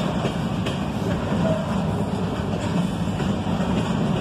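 Double-stack intermodal freight train's well cars rolling past: a loud, steady rumble of steel wheels on the rails.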